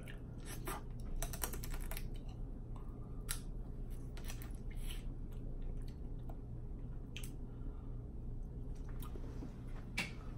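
Snow crab leg shells cracked and picked apart by hand, close to the microphone: irregular sharp clicks and crackles.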